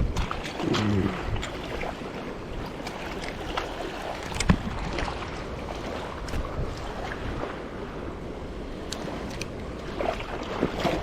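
Waves washing against the jetty rocks with wind on the microphone, a steady wash broken by scattered small clicks and one sharper knock about four and a half seconds in.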